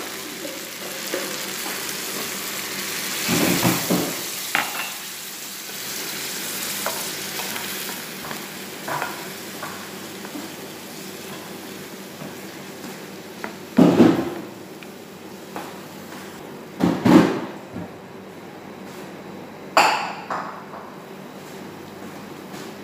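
Chicken sizzling in a frying pan just after a cup of water has gone in. The hiss fades as the liquid heats. A spoon scrapes and knocks against the pan a handful of times during the stirring.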